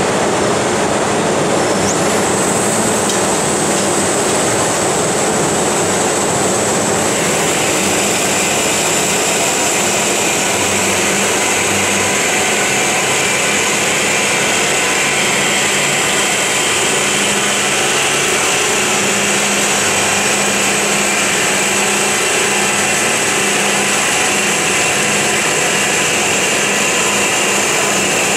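FMB Omega semi-automatic hydraulic band saw running and cutting through solid metal bar: a steady, loud machine noise with a thin high whine, the cutting sound turning brighter about seven seconds in.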